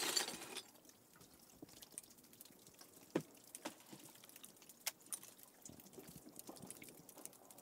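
Candle ice melting: faint meltwater drips with small clicks and tinkles among the ice, and a few sharper ticks about three and five seconds in. It opens with the tail of a louder rushing noise that stops about half a second in.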